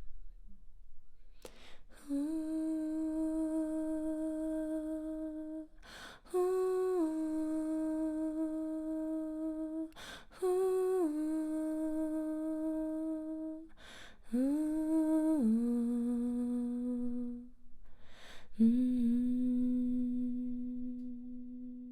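A woman humming long, slow held notes for sound healing, about five notes of roughly four seconds each with a breath drawn between them. Several notes step down in pitch partway through, and the last is held low and fades.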